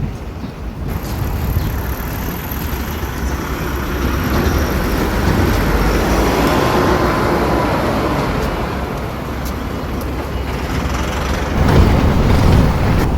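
A passing vehicle: a steady rushing noise that builds to a peak midway, eases off, then swells again near the end.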